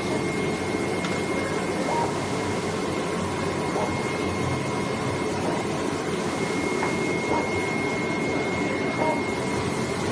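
CNC flatbed gasket cutting machine running as its tool head cuts a gasket sheet: a steady whirring machine noise with a thin, steady high tone, and a few faint clicks from the moving head.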